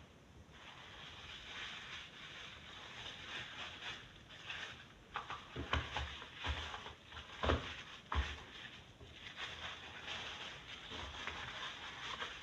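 Handling and unwrapping of a face cream's packaging: a continuous rustling, with a cluster of sharp clicks and knocks about halfway through.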